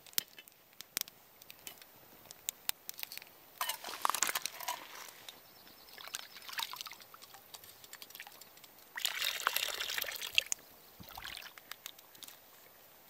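Lake water sloshing and pouring as a small stainless steel pot is dipped in the lake and emptied to cool a freshly boiled egg, in two spells about four seconds in and about nine seconds in. A few light clicks of the metal pot being handled come at the start.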